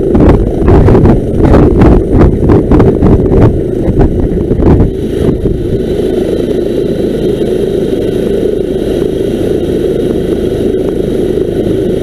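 Twin-engine police helicopter's turbines running on the ground, with rotor wash buffeting the microphone in gusts for the first few seconds. After that the sound settles into a steadier run with a faint high whine.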